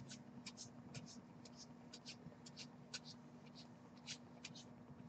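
Faint, irregular soft ticks of trading cards being handled and flicked through by hand, several a second, over a low steady hum.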